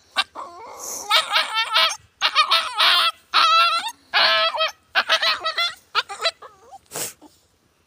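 Injured puppy crying and yelping in distress: a run of high, wavering cries that trail off about six seconds in.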